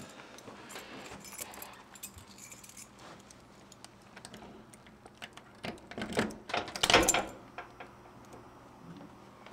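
Keys jangling as a key is worked into a door lock below the knob, with soft clicks throughout and a run of louder metallic clicks and rattles about six to seven seconds in.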